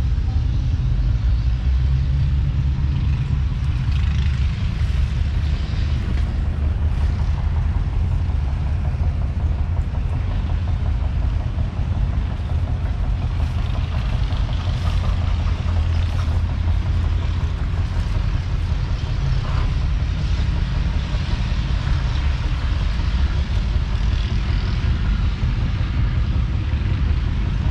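Valtra T150's 6.6-litre six-cylinder diesel engine idling steadily, a low even rumble.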